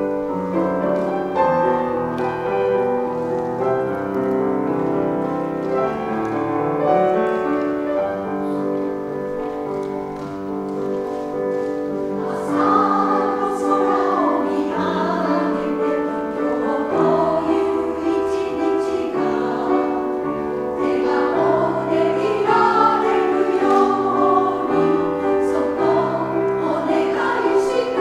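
Women's choir singing a Japanese pop song in parts with grand piano accompaniment. The piano carries the opening, and the voices come in strongly about halfway through.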